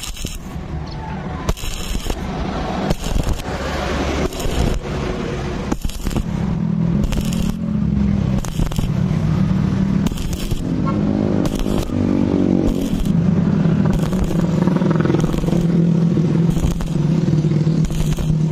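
Stick (MMA) arc welding on thin galvanized square tubing: the arc crackling and sputtering steadily. A low hum runs underneath from about six seconds in.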